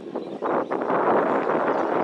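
Wind buffeting the microphone: a rough, gusty rushing noise that dips briefly near the start, then holds steady.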